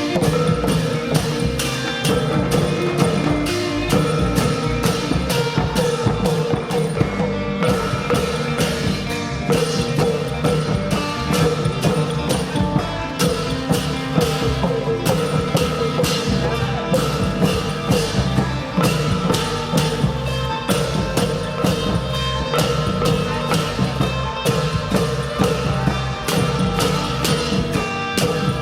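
Isan pong lang ensemble music: the pong lang, a wooden log xylophone, struck in quick regular strokes over drums and other percussion.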